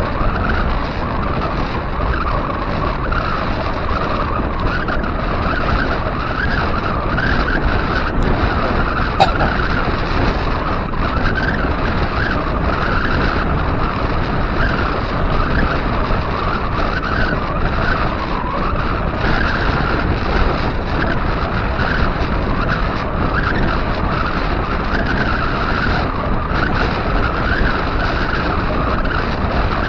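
Steady rush of wind over the action camera's microphone, with the hum of wide 700x45c bicycle tyres rolling on asphalt at about 15 to 19 mph. A single sharp click comes about nine seconds in.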